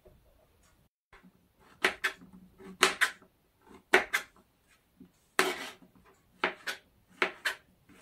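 Kitchen knife cutting through porcini mushrooms and striking a plastic cutting board: about nine sharp knocks, often in quick pairs, starting about two seconds in, with one longer scraping cut about five and a half seconds in.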